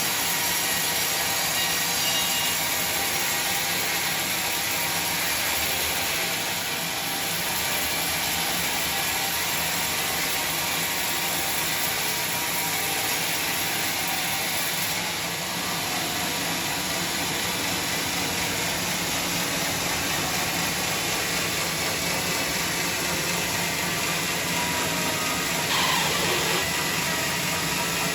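Sawmill machinery running steadily, a constant mechanical noise. Near the end there is a brief falling squeal.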